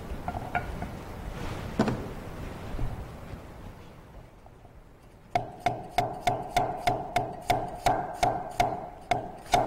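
Chinese cleaver chopping fresh ginger into shreds on a wooden cutting board: a steady run of knife strikes on the board, about three a second, starting about halfway through. Before that there are only a few faint knocks as the knife and ginger are set in place.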